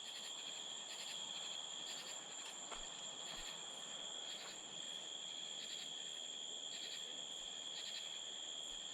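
Night insect chorus: crickets making a steady high-pitched drone, with a second set of rhythmic chirps repeating about once a second. A single faint tap comes about three seconds in.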